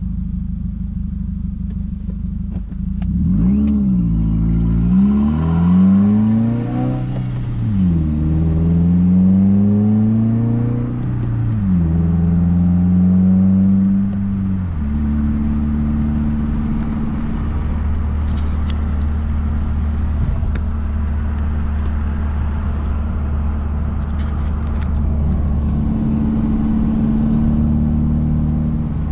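Subaru WRX turbocharged flat-four with an open J-pipe exhaust, heard from inside the car: steady running, then about three seconds in the revs climb and drop several times as it accelerates, with a rising turbo whistle, before settling to a steady lower drone about halfway through. A few faint clicks later on.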